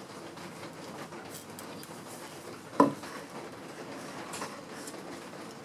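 A metal hand plane being handled on the bench, with faint clicks and one sharp knock about halfway through, as the plane is set down or knocked against the wood.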